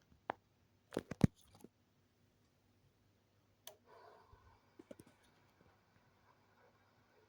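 A few sharp clicks: a single one near the start, a loud cluster of three or four about a second in, then scattered lighter clicks and a brief rustle around four to five seconds in.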